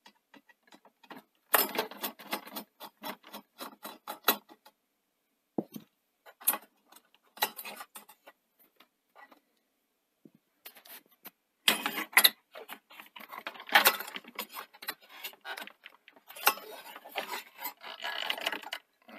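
Clicks, scrapes and light rattles of a screwdriver, screws and the sheet-metal chassis and parts of a VHS video recorder being handled during disassembly, in irregular spells with short quiet gaps.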